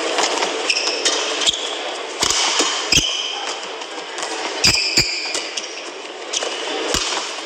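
Badminton rally: sharp racket strikes on the shuttlecock, several of them roughly a second apart, with short high squeaks of court shoes on the playing mat between the hits, over a steady hum from the arena crowd.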